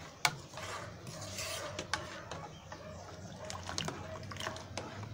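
Hot water being stirred in a mug with a plastic spoon: a soft swishing with scattered light clicks of the spoon against the sides, as crushed mothball powder dissolves.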